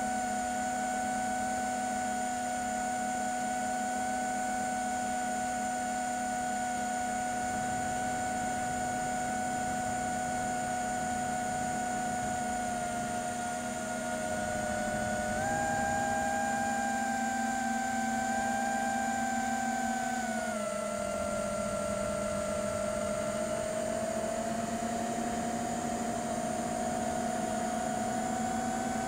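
FPV quadcopter's brushless motors and propellers humming steadily in flight, on a 6S battery. The pitch steps up about halfway through and drops back down a few seconds later as the throttle changes.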